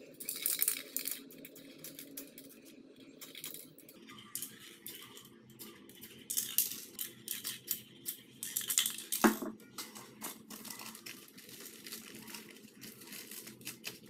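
Aerosol spray-paint can hissing in short bursts, with paper rustling and handling noises between them, and a sharp knock about nine seconds in.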